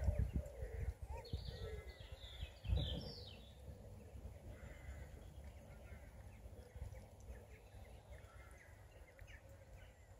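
Otters calling with short, high squeaky chirps: a cluster of calls in the first few seconds, then a few scattered ones.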